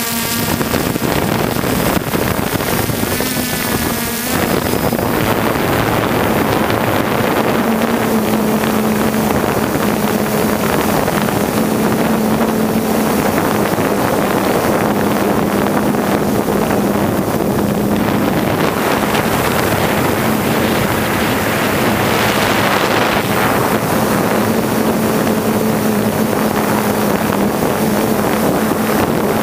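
3DR Solo quadcopter's motors and propellers, heard from the GoPro on board: a steady low hum mixed with loud wind rush over the microphone. There is a brief wavering change about four seconds in.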